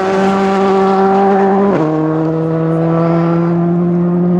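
WRC 2 rally car's engine running loud at steady revs, its pitch dropping quickly once about two seconds in and then holding.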